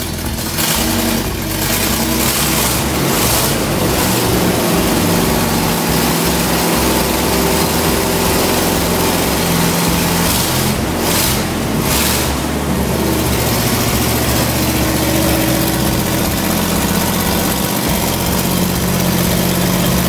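Freshly rebuilt small-block Chevrolet V8 in a Corvette Stingray running on its first outing after installation. It runs loudly and steadily, with the revs rising and falling about midway.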